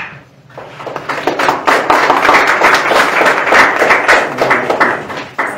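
Audience applauding, a dense patter of many hands clapping that swells up about half a second in and dies away near the end.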